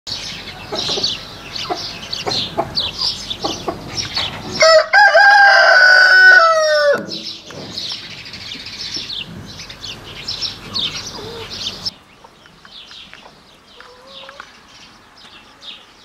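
A rooster crows once, loud and about two and a half seconds long, its pitch dropping at the end, about four and a half seconds in. High-pitched chirping goes on throughout and becomes quieter about twelve seconds in.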